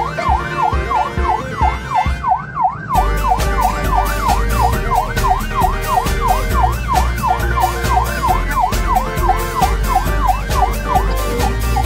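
Vehicle siren in a fast yelp, its pitch sweeping up and down about three to four times a second without pause. About three seconds in, a heavier low rumble and a steady run of clicks join it.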